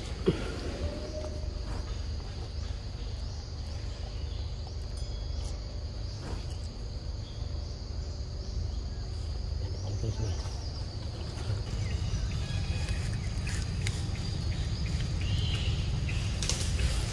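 Forest ambience: a steady high-pitched insect drone over a low rumble, with a single sharp click just after the start.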